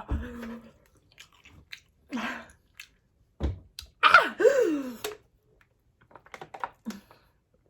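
A person chewing and biting a mouthful of spicy noodles with Hot Cheetos close to the microphone, in short separate bouts. About four seconds in comes a louder, brief strained vocal noise from the eater.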